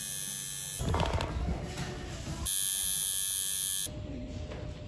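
Tattoo machine buzzing in short runs: it stops about a second in, runs again for about a second and a half in the middle, then stops, with low rustling in the pauses.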